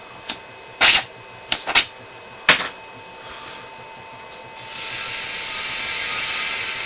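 Several sharp knocks and pops as the HHO torch is put out, the loudest about a second in. Then a steady hiss starts about five seconds in and holds.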